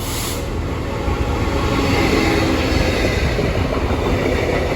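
Freight train passing close by at the platform: a Class 66-hauled rake of new Class 777 units rolling through, a steady rumble of wheels on rail. Faint steady tones come in about two seconds in.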